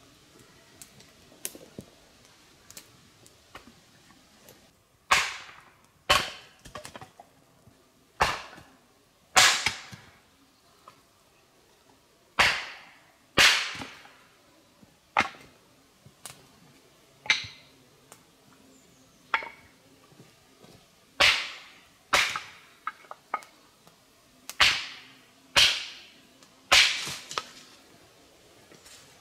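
Axe strikes splitting wood on a chopping block: a series of sharp cracks, roughly one a second, starting about five seconds in.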